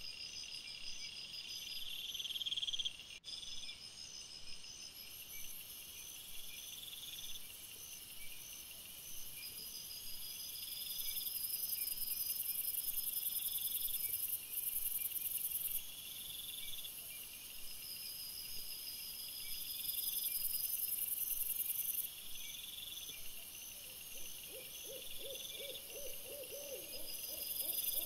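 Night insect chorus of crickets: several overlapping high-pitched trills, some steady and some repeating in pulses. Near the end a quick run of short, lower-pitched calls joins in.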